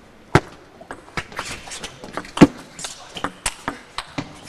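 Table tennis rally: the celluloid-type ball clicking off the bats and the table in an irregular run of sharp hits, the loudest about half a second in and about two and a half seconds in.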